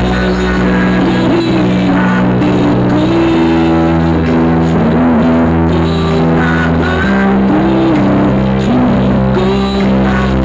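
Loud music played through a large outdoor sound system, with heavy held bass notes that change about every three and a half seconds under a melody line.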